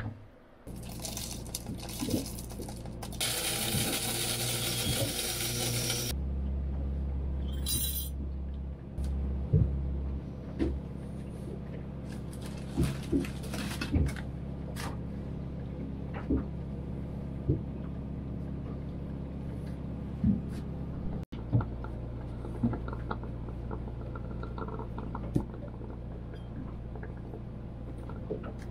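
Liquid pouring for a few seconds, then a steady low machine hum with scattered light clinks of a spoon against a jar.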